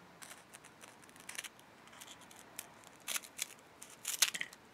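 Small scissors snipping through dry puffed snack pieces: a series of short, crisp cuts and clicks, the loudest cluster near the end.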